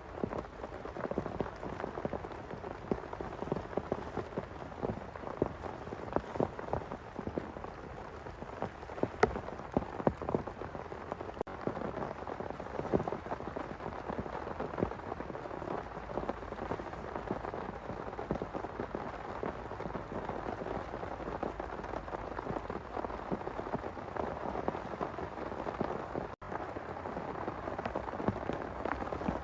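Heavy rain falling steadily, with many close, sharp drop hits landing irregularly on a surface.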